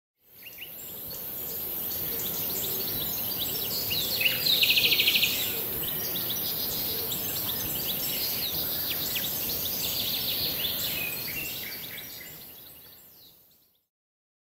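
Birds chirping and calling over a steady high hiss, with a buzzy trill about four seconds in as the loudest call. The birdsong fades in at the start and fades out near the end, in the way an edited-in nature-ambience track does.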